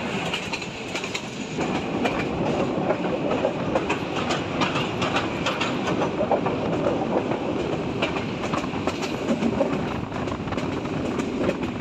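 Local passenger train running along the track, heard from the carriage's open door: a steady rumble of the coaches with the wheels clattering over the rail joints, getting fuller about a second and a half in.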